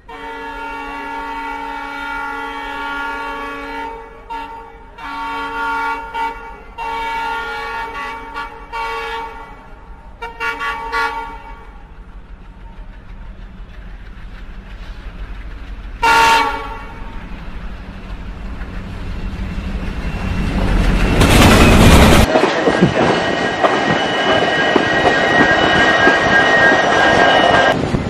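Passenger train's horn sounding a string of long blasts on the same chord through the first ten seconds or so, with one more short blast about halfway. Then the loud rush and wheel clatter of the moving train on the rails swells up over the last seven seconds.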